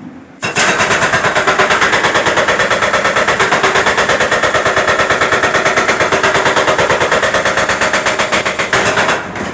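Jackhammer hammering on hard micro-tunnel concrete in a long, steady run of rapid, even blows. It starts about half a second in and stops shortly before the end.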